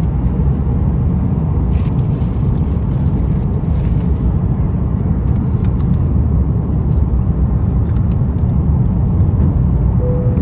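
Airliner cabin noise: a loud, steady, low rumble from the engines and airframe as the plane lands and rolls out, with a brief rise in hiss about two seconds in.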